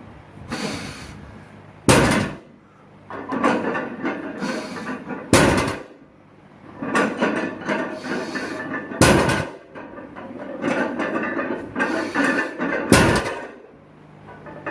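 Four heavy metal impacts, about one every three and a half seconds: a loaded barbell striking the floor or rack on successive reps, with clattering between them.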